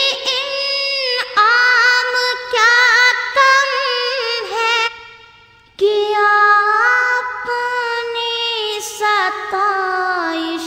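A single high voice singing an Urdu devotional song in long, wavering melodic phrases. It breaks off about five seconds in, then starts a new phrase that settles on a long held note near the end.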